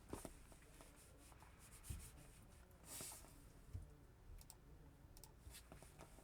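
Near silence broken by faint, scattered clicks and small knocks, a few seconds apart, with a brief soft hiss about three seconds in.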